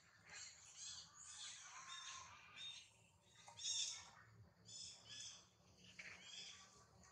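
Faint animal calls: a string of short, high chirps and squeaks at irregular intervals, the loudest a little past the middle.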